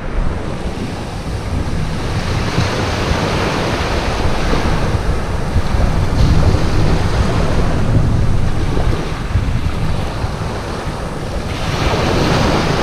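Small waves breaking and washing up over a shingle beach, the surf swelling and easing with each wave. Wind buffets the microphone throughout.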